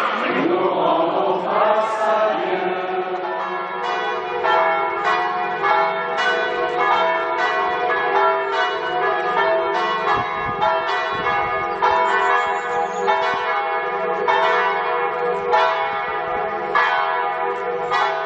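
Church bells ringing a peal: a steady run of strokes, a little under two a second, their tones ringing on and overlapping under each new stroke. Singing fades out in the first couple of seconds as the ringing builds.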